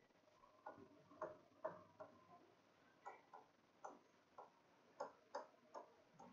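Faint, unevenly spaced clicks and taps of a stylus on an interactive smartboard's touchscreen as words are written by hand, about two a second.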